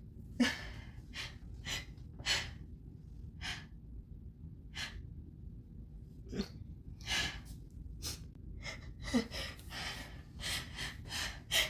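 A woman's sneeze build-up: a string of short, sharp gasping inhalations and breaths (sneeze hitches), the loudest about half a second in and coming faster toward the end. They are set off by grass tickling her nose.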